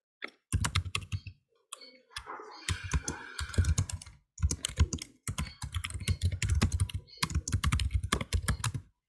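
Typing on a computer keyboard: fast runs of key clicks broken by short pauses, picked up through a video-call microphone.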